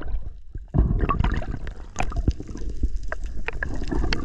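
Sea water sloshing and gurgling around a microphone moving at and just below the surface, with many small clicks and pops. It gets louder about a second in.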